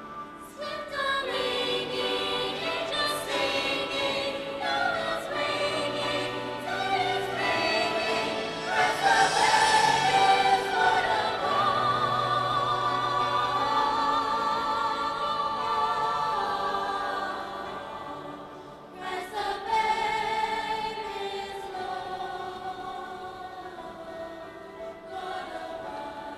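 High school concert choir singing a choral piece in several voice parts, with held chords and vibrato. The sound swells to its loudest about ten seconds in, thins out, and a new phrase enters about nineteen seconds in.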